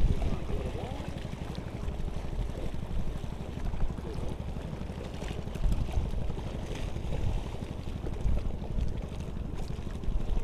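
Steady low rumble of wind buffeting the microphone by open water, with a few faint knocks.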